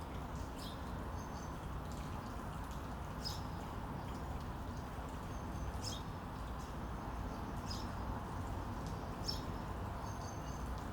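Small birds chirping: short, high calls about every two seconds over a steady low background hiss.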